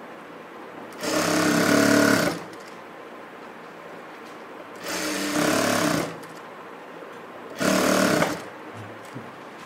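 Sewing machine stitching in three short runs of about a second each, stopping between runs, as the front panel is sewn to its lining.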